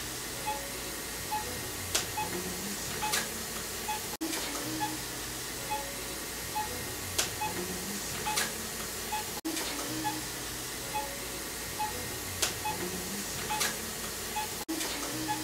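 Quiet looped background music: a short low melodic figure and a few sharp clicks repeat about every five seconds over a steady hiss, with a short high note about once a second.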